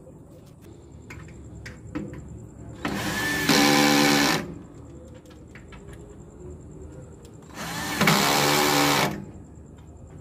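Power drill driving screws in two runs of about a second and a half each, the whir rising as it spins up, fastening a steel side firebox to a smoker's main chamber.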